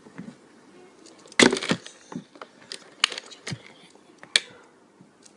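Sharp clicks and knocks of a fidget spinner being handled and flicked. The loudest cluster comes about a second and a half in, followed by three single clicks.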